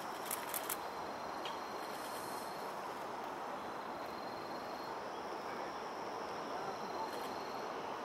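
An insect, cricket-like, trilling high and thin in phrases about a second long, repeating every couple of seconds over a steady background rush. A few sharp high clicks sound about half a second in and once more near the end.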